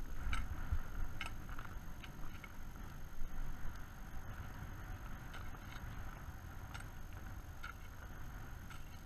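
Wind rumbling on the camera microphone on open snow, with a few scattered short crunching clicks, the loudest about a third of a second in and around three seconds in.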